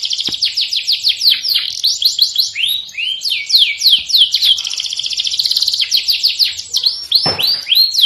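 Domestic canary singing: a continuous song of rapidly repeated high falling notes, several per second, that switches to a very fast trill midway and back to slower falling notes near the end.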